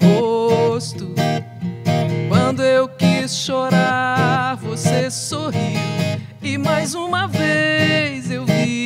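Music: a woman singing a melodic line over strummed acoustic guitar.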